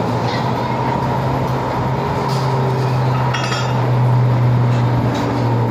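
Steady rush of compressed air from a tire changer's inflation hose feeding a turf tire on its rim, over a continuous low hum, with a few light metallic clinks, the clearest about halfway through.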